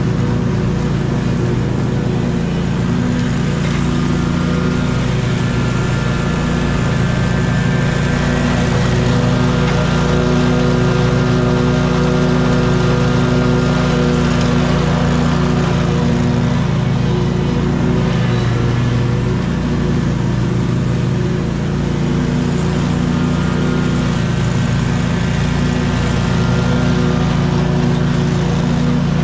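Scag 36-inch stand-on mower with a mulching kit, its engine running steadily under load as the blades cut and mulch grass. The engine note shifts slightly now and then as it works.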